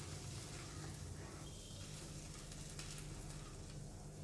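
Faint sizzling of the vegetable masala and water heating in the pan on the stove, over a low steady hum.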